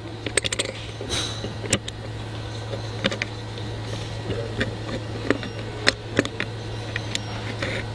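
Small metal parts of a paintball marker clicking and tapping as the new air rod is fitted into its receiver by hand, a dozen or so sharp clicks at uneven intervals over a steady low hum.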